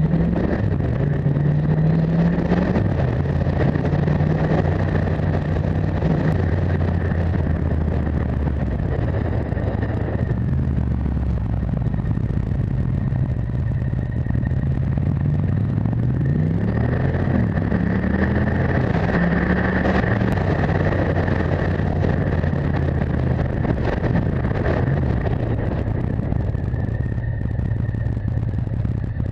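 Motorcycle engine heard on board while riding a winding mountain road. Its pitch rises and falls again and again with the throttle through the hairpin bends.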